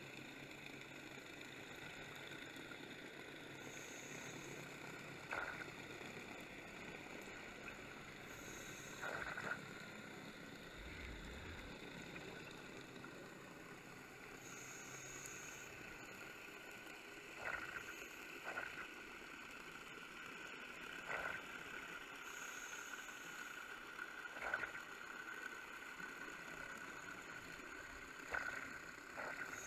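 Scuba regulator breathing heard underwater: a steady low hiss, with a high hiss of about a second roughly every six seconds and short sharper bursts between them.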